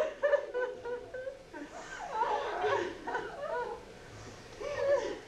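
Several people sobbing and wailing in distress, their cries rising and falling and overlapping in uneven bursts.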